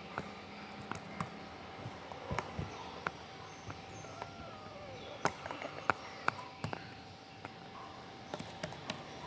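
Slime being squeezed and stretched in the hands, giving irregular small wet clicks and pops, a few sharper ones about five to seven seconds in, over a faint steady hum.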